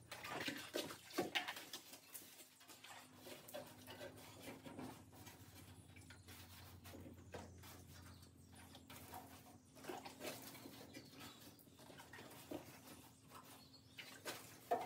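Faint, irregular wiping and dripping as a wet sponge and clean water are worked over an acid-etched galvanised steel bulkhead, washing off the salt left by the etch, over a faint steady hum.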